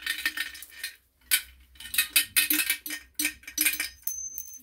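Light metallic clinks and rattles, a dozen or so in quick irregular succession, from a kerosene burner's metal fuel tank and its feed tube being handled and worked apart.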